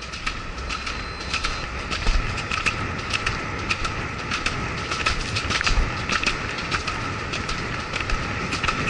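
A horse galloping on grass, its hoofbeats falling in a steady repeating rhythm, with the rush of the ride behind them.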